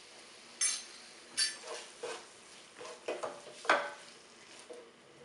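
Wooden spoon stirring chopped tomatoes in a nonstick pan: a run of separate scrapes and knocks against the pan, the loudest near the end.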